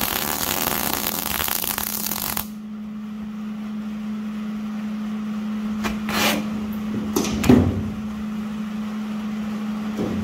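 Electric arc welding: the arc crackles and spits for about two and a half seconds as a bolt is welded onto the chipper drum, then cuts off suddenly. A steady low hum continues underneath, and a few short knocks follow later on.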